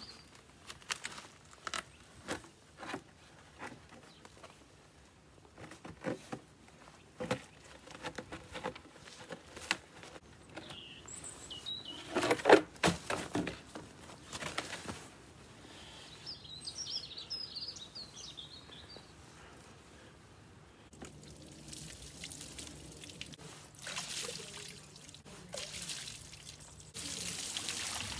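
Footsteps on snowy grass with birds calling, and a loud knock about twelve seconds in as a block of ice is tipped out of a plastic trug onto the ground. In the last seven seconds or so, water pours from a jug and splashes over a block of ice on a wooden bench.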